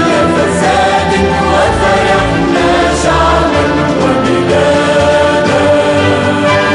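Choir singing a patriotic Arabic anthem over instrumental backing, with sustained held notes.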